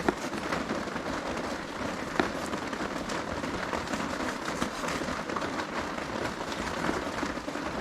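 Heavy rain falling steadily on a tarp overhead: a dense, even patter of drops, with a few louder single taps.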